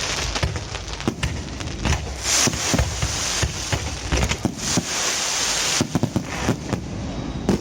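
Aerial fireworks crackling: a dense, irregular run of sharp pops and cracks, with a few brief hissing swells of sparkle.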